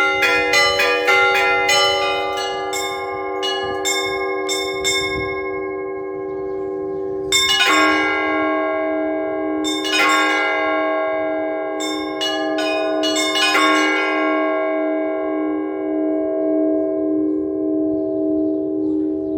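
Russian Orthodox church bells struck by a bell ringer. Quick strikes on the smaller bells come first, then a few heavier strikes about two seconds apart. The peal ends with the bells left to ring out, the deepest tone wavering as it hums on.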